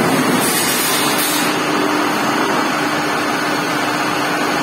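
Steady running hum of a CNC lathe in the machine shop, with one constant tone under the noise and a brief high hiss about half a second in.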